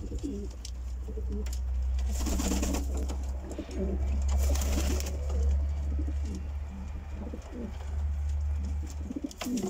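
A loft full of domestic pigeons, Polish show homers and Silesian shield pigeons, cooing: short, low coos overlapping one after another. A steady low rumble runs underneath and stops about nine seconds in.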